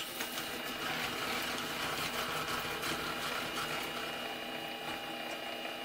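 Mini lathe carriage being hand-cranked along the bed, its handwheel and rack gearing giving a light, steady mechanical rattle.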